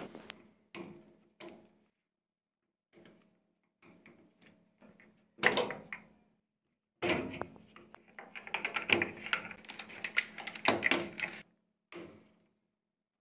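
Plastic clicks, knocks and rattles as wire connectors and the plastic control-panel parts of a washing machine are handled and prised apart with a screwdriver. A sharp knock comes about five and a half seconds in, followed by a spell of quick clattering lasting about four seconds.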